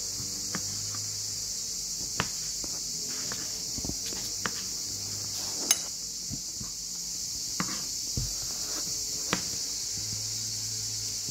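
Kitchen knife slicing tomatoes on a plastic cutting board: a few scattered sharp taps as the blade hits the board, over a steady high hiss.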